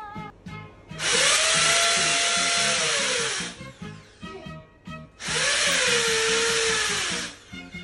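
Power drill run in two bursts of about two seconds each, its motor pitch rising as it spins up and falling as it stops, used while mounting a wall fan.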